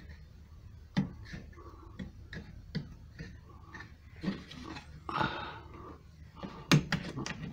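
Plastic parts of a VW Golf door mirror housing being handled and clipped back together by hand: scattered light clicks and knocks, with a quick run of sharp clicks near the end.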